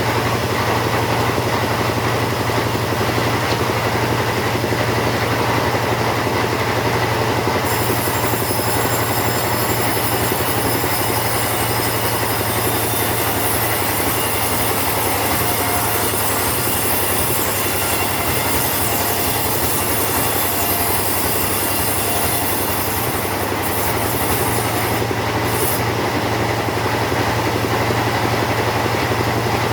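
Two-stroke chainsaw running steadily at high speed while ripping teak lengthwise. A high hiss joins about eight seconds in and drops away a few seconds before the end.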